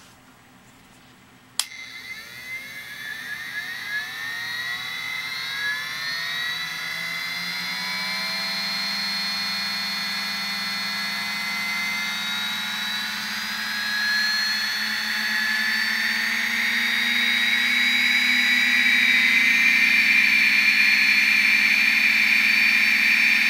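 Three 60mm brushless DC fans starting up together: a click about a second and a half in, then a multi-tone whine climbing in pitch for about six seconds as they spin up, over a rising rush of air. The whine then holds steady at full speed, growing a little louder past the middle.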